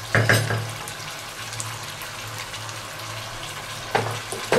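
A plastic spatula knocking and scraping in a nonstick pot of chicken fried down in masala: a couple of sharp knocks near the start and two more near the end. A steady hiss from the pan on the gas stove runs between them.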